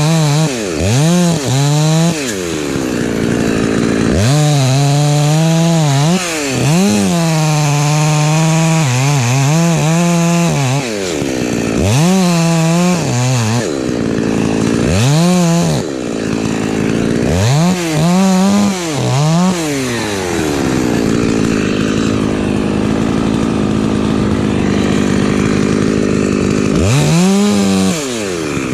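Husqvarna 254 two-stroke chainsaw being revved up and down about eight times in quick succession, then running more evenly for several seconds before one more rev near the end.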